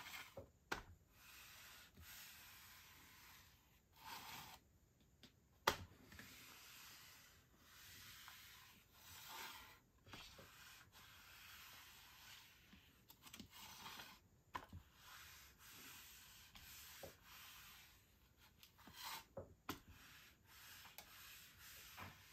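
Steam iron's soleplate rubbing back and forth over a clear sheet on a perler bead pegboard while fusing the beads: soft scraping in stretches of a second or two, with scattered light clicks and one sharper knock about six seconds in.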